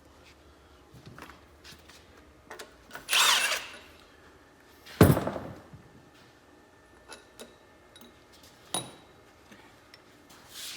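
Metal tool and engine-part clanks during removal of a small block Chevy cylinder head: a few scattered clicks, a short rasping burst about three seconds in, and a loud heavy thunk about five seconds in.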